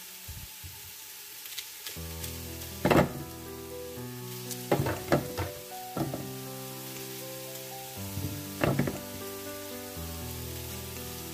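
Meat sizzling as it browns in a pot, with a few sharp knocks as onion pieces are dropped into a plastic food-processor bowl, over background music.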